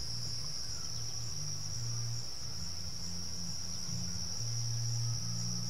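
Crickets chirping as a steady high-pitched trill, over a low hum that wavers in strength.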